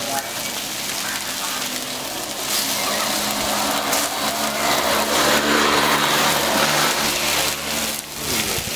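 Fish sizzling as it fries in hot oil, a steady hiss that grows louder about two and a half seconds in.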